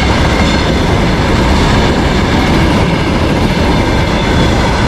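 Freight train passing close by: a steady, loud rumble of the wagons' wheels on the rails.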